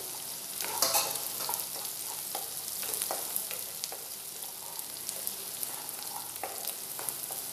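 Chopped onion and garlic sizzling in hot oil in a nonstick wok. A wooden spatula stirs them, scraping and knocking against the pan in short strokes, the loudest about a second in.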